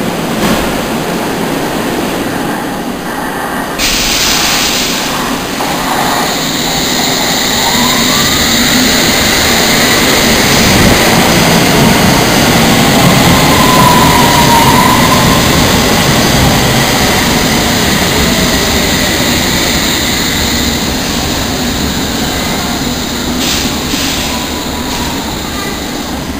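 London Underground S7 stock train running into the platform and braking: a rumble and hiss of wheels on rail that builds, is loudest about halfway, then eases as the train slows, with a motor whine that glides in pitch midway.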